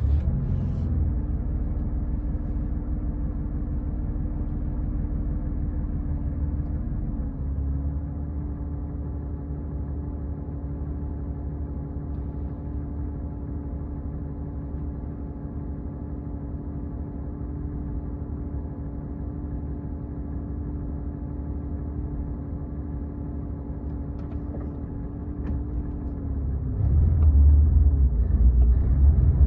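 Porsche 997 flat-six engine idling steadily with a constant tone over its running. The idle dips slightly about 7 seconds in, and near the end the engine note rises and gets louder as the throttle is opened.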